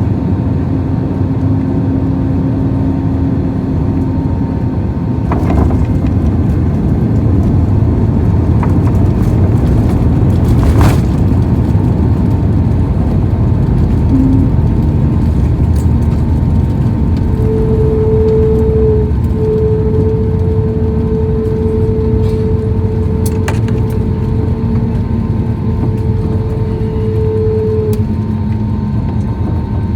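Airliner cabin noise on arrival: a steady low rumble from the aircraft with a constant hum. A higher tone joins a little past halfway and drops out near the end, and there are a few faint clicks.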